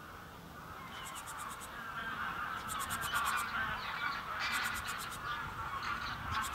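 A flock of wild geese honking, many calls overlapping into a chattering clamour that builds after about a second and is loudest in the middle.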